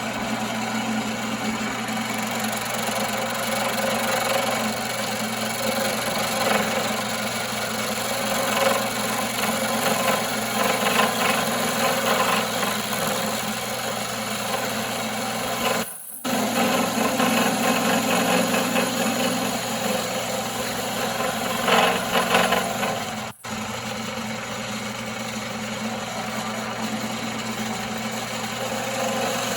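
Wood lathe running with a steady motor hum while a turning tool scrapes and cuts into spinning firewood, the cutting noise rising and falling as the tool is worked. The sound cuts out abruptly twice, once near the middle and again about three-quarters through.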